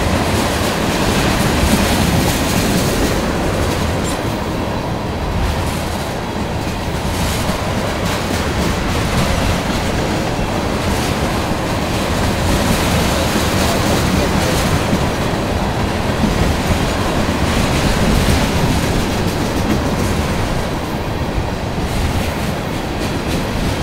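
Freight train of railroad tank cars rolling past close by: a loud, steady noise of steel wheels on the rails, with scattered clicks.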